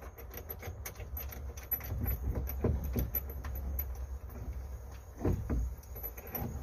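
Small metallic clicks, clinks and knocks of steering helm hardware being handled and fitted behind a fibreglass boat dashboard, irregular and busiest in the middle and again about five seconds in, over a low rumble.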